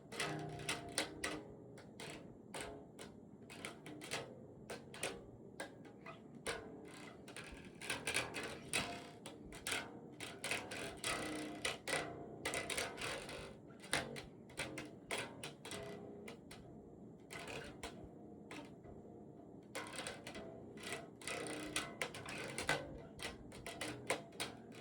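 Bass guitar being played: a quick run of plucked notes with sharp, clicky string attacks.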